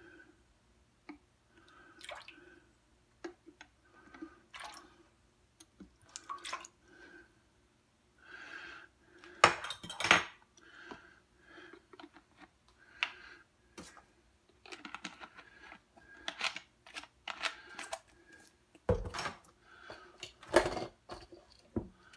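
Kitchen handling sounds: scattered clinks and knocks of a metal measuring spoon, bottles and a plastic measuring cup while lemon juice is measured into a marinade, with a few louder knocks about ten seconds in and twice near the end.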